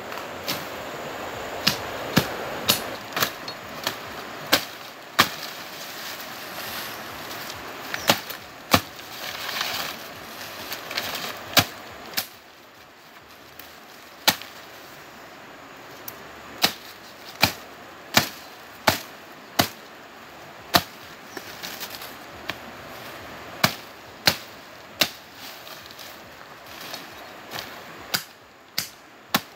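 Machete chopping through brush: a long series of sharp, irregular chops, most about a second apart, with leaves and stems rustling between them.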